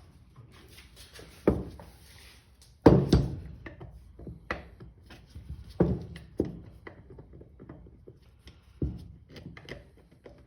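Irregular knocks and clunks of a hand tool working on the Suzuki RV90's springer front fork, about seven sharp hits spread out with smaller clatter between, the loudest a quick double knock about three seconds in, as the stuck top cap is worked loose.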